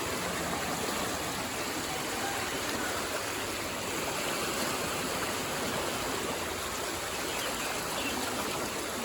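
Fast-flowing floodwater rushing steadily over a flooded road, a continuous even rush of water.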